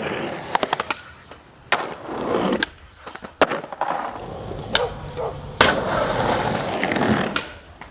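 Skateboard wheels rolling on concrete, broken by several sharp clacks of the board popping and landing.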